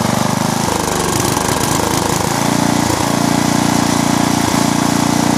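Bolens Suburban riding mower's 10 horsepower Briggs & Stratton engine running with its air cleaner off, its note faltering about a second in and picking back up after about two seconds, with brief dips later. The owner blames the uneven running when throttled up on a failing fuel pump or a carburetor that needs adjusting.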